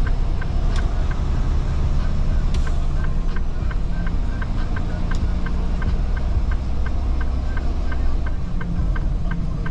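Semi truck's diesel engine running low and steady as the truck rolls slowly, heard from inside the cab, with a steady light ticking about four times a second.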